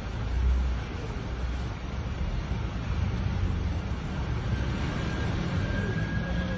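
Low rumbling noise from a collapsing multi-storey building and its falling debris, swelling about half a second in. A faint thin high tone joins in the second half.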